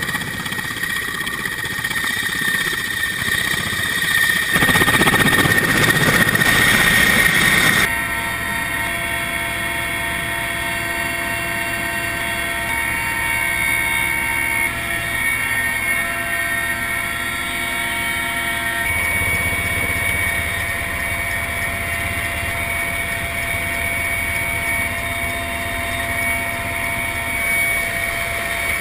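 Steady drone of an aircraft's engines heard from inside the cabin, a hum of fixed tones that deepens about two-thirds of the way through. It follows several seconds of louder rushing noise.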